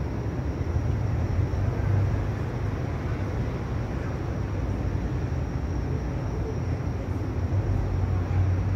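Steady low hum of city background noise, a constant rumble with no distinct events.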